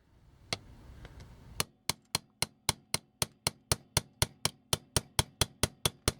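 Light hammer taps on a tool driving at a stuck part of a vintage toy, a single tap about half a second in, then a steady run of even taps about four a second from about a second and a half in.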